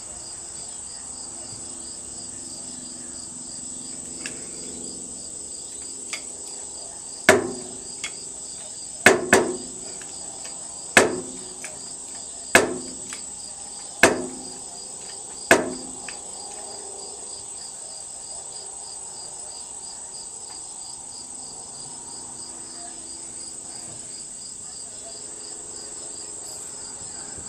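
Seven hammer blows, mostly about one and a half seconds apart with two in quick succession, each with a short ring, struck in freeing the seized tractor engine. Crickets chirp steadily throughout.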